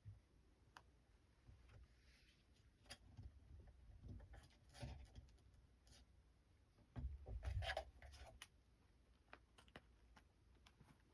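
Faint scuffling of kittens at play: light scratching and ticking of claws, with soft thumps that come in a brief louder flurry a little past halfway.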